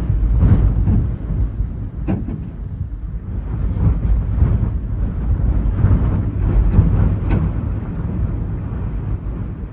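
Storm-force wind gusting hard across the microphone: a heavy low rumble that swells and eases in gusts, with a couple of sharp knocks about two seconds in and again near the end.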